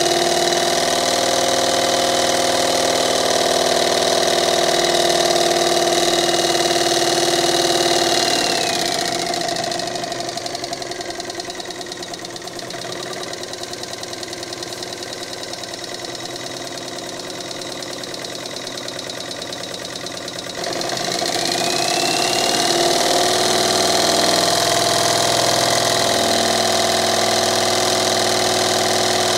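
Jensen 25 model steam engine belt-driving a small DC generator, running fast with a steady whine. About eight seconds in it is throttled back and the pitch and level fall. About twenty-one seconds in it is opened up again and speeds back up.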